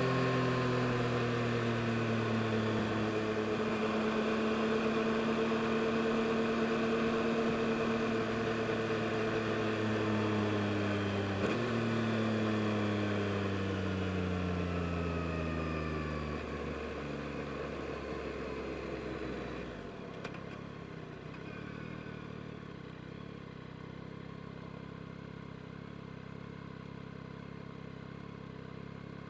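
2022 Yamaha MT-09 SP's 890 cc three-cylinder engine running at steady revs. About eleven seconds in its pitch drops suddenly, then the revs fall steadily, and about two-thirds of the way through it gives way to a quieter low hum.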